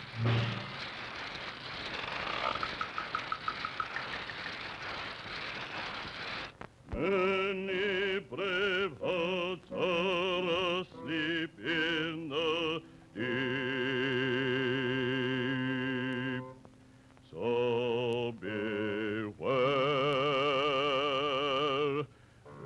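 Early sound-cartoon soundtrack: about six seconds of steady rushing noise, then a low male voice singing in short operatic phrases with a wide, wobbling vibrato and brief breaks between them.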